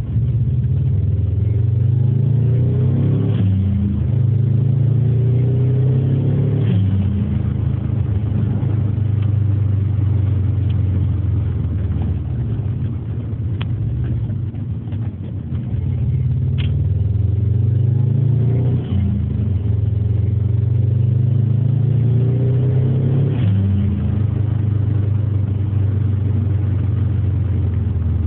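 Subaru Impreza WRX's turbocharged flat-four engine accelerating through the gears, heard inside the cabin. The engine climbs in pitch and drops back at each gear change, about four times, with a steadier cruising stretch in the middle. Short bursts of noise at the shifts are the aftermarket Bailey Motorsport dump valve venting.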